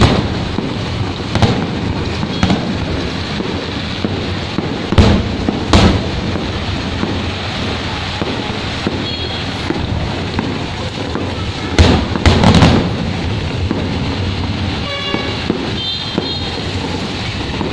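Fireworks bursting overhead in loud bangs: one as it begins, a pair about five seconds in, and a cluster about twelve seconds in, with smaller pops between. Rain keeps up a steady hiss underneath.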